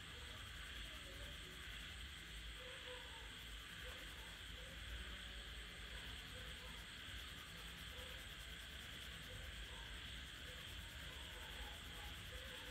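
Wax crayon scribbling rapidly back and forth over paper: a faint, steady scratching.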